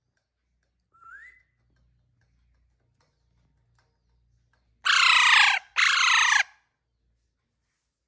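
Young Alexandrine parakeet calling: a faint short rising whistle about a second in, then, past the middle, two loud harsh squawks back to back, each under a second and dipping slightly in pitch.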